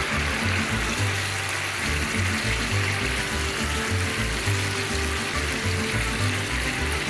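Background music with a repeating bass line, over a steady hiss.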